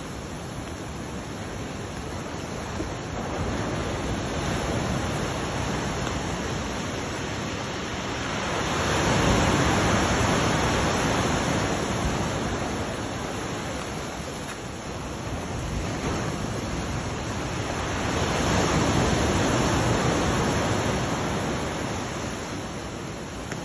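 Ocean surf washing against the shoreline, a steady rush that swells loudly twice, about a third of the way in and again near the end.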